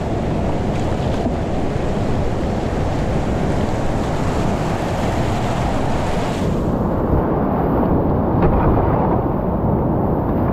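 Whitewater rapids rushing steadily around a kayak running through them. About two-thirds of the way through, the rush turns duller.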